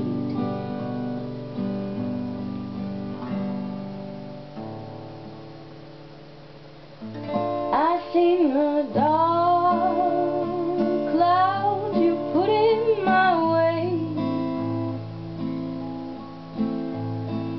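Acoustic guitar playing alone, growing softer until about six seconds in. About seven and a half seconds in, a woman's voice enters, singing a wavering melody over the guitar.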